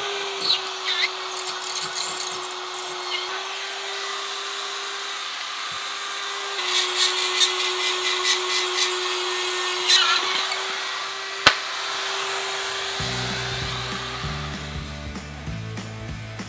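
RotoZip spiral saw running at a steady high whine as its bit cuts a round hole in ceiling drywall around a recessed can light, with rattling scrapes and a sharp knock about eleven seconds in. Music with a low, rhythmic beat comes in near the end as the saw fades out.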